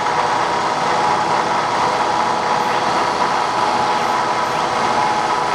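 Richmill CNC 30 5C indexer's drive motor running, a steady mechanical hum with a held whine.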